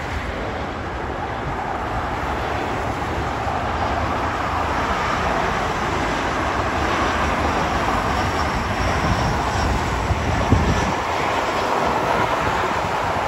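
Twin turbofan engines of a Delta Connection Embraer regional jet on final approach with gear down: a steady jet rush and rumble that grows slowly louder as the plane comes nearer.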